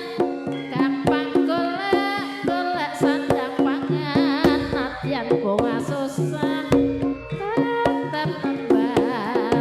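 Live campursari music: a steady, even beat of kendang hand drums under sustained pitched instruments, with a wavering melody line weaving over the top.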